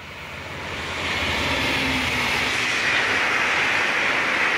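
V/Line VLocity diesel railcar set passing close at speed: the noise of the train running over the rails swells over the first second, then holds steady as the cars go by.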